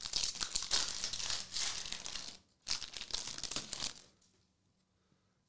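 Crinkling of a trading card pack's wrapper as it is opened and the cards are pulled out, in two stretches with a short break between, stopping about four seconds in.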